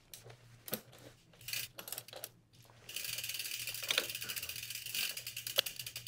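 Ratcheting torque wrench tightening a crank-arm pinch bolt: a few scattered clicks of the tool being set on the bolt, then fast, even ratchet clicking from about three seconds in as the wrench is worked back and forth.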